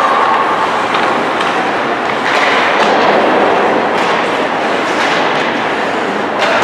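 Ice hockey game sound in a rink: a steady din of skates on ice and spectators, with several sharp clacks and thuds of sticks, puck and boards as players battle along the boards.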